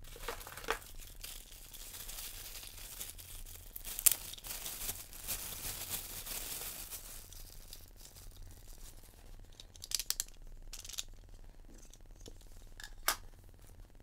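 Clear plastic packaging bag crinkling and rustling as a part is unwrapped from it by hand, with a sharp crackle about four seconds in. A few separate sharp clicks follow near the end as the parts and cables are handled.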